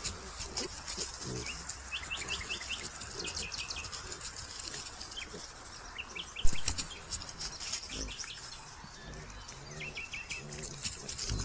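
Small birds calling, short falling chirps in quick runs of three or four, repeated several times, over light crackling of dry leaf litter. A single sharp snap stands out about six and a half seconds in.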